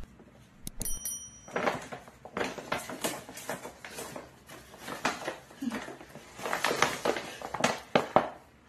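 Stiff paper shopping bag crinkling and rustling in irregular bursts as it is handled and a small pet is put inside it.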